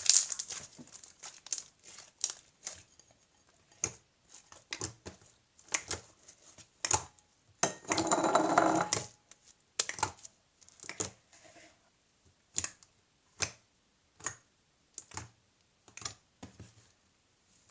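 Homemade slime squeezed, poked and stretched by hand for ASMR: an irregular run of short sticky clicks and pops, with one longer squelching stretch about eight seconds in.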